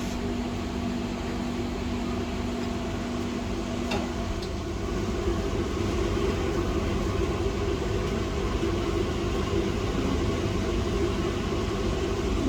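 Steady blowing hum, like the fan of a hot air rework station, with a faint low tone that stops about four seconds in; the hum grows a little louder just after.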